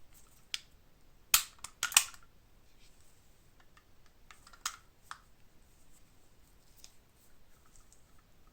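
Restored antique padlock being worked: sharp metal clicks of the shackle and lock mechanism. The loudest come as a cluster about a second and a half to two seconds in, with a few lighter clicks later.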